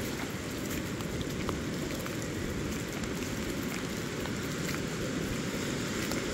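Steady rushing of the South Fork American River in major flood, mixed with falling rain, with scattered light raindrop ticks.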